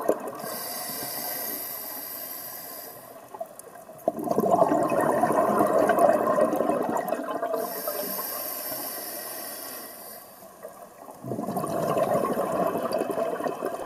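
Scuba diver breathing through a regulator underwater: a hissing inhalation, then a louder rush of exhaled bubbles, the cycle heard twice.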